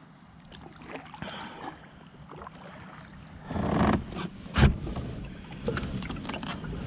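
Kayak being paddled: paddle strokes and water noise, with one sharp knock about halfway through, the loudest sound, and smaller clicks after it.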